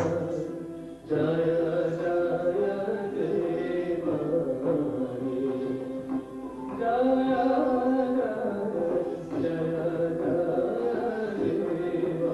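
Odissi classical dance music: a singer with drum and melodic accompaniment, held notes sliding gently in pitch. It breaks off briefly about a second in, then carries on.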